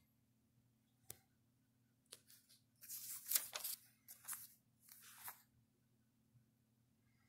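Pages of a small 1946 paper booklet being turned by hand: a faint tap about a second in, then several dry paper rustles between about two and five and a half seconds in.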